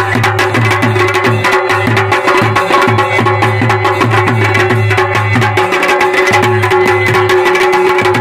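Chhalia band music: dhol and damau drums beating a rapid rhythm under a masakbeen bagpipe playing a melody over a steady drone.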